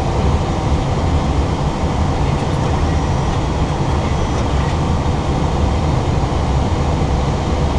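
Steady rumble and rush of airflow and engine noise inside an Airbus A320 cockpit in flight on approach, strongest in the low end and unchanging.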